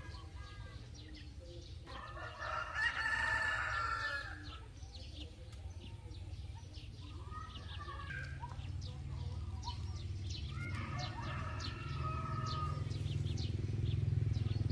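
A rooster crowing: one long crow about two seconds in and a fainter crow later. Under it runs a low steady hum that grows louder toward the end.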